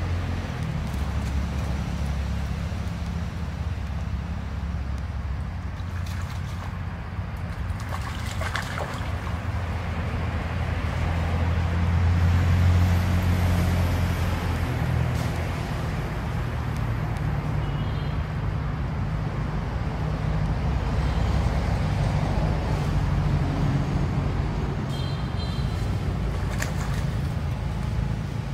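A steady low engine rumble, swelling for a couple of seconds midway, with a few light clicks and faint high chirps over it.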